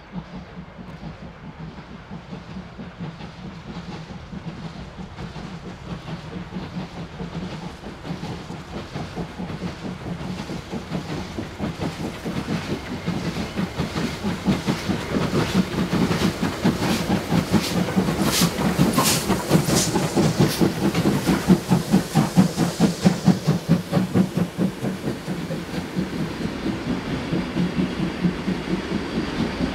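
Three Victorian Railways steam locomotives, D3 639, A2 986 and R761, working hard in multiple. Their quick, overlapping exhaust beats grow steadily louder as they approach, are loudest a little past halfway as they pass, then ease off. Near the end this gives way to the wheels of the passenger carriages clicking over the rail joints.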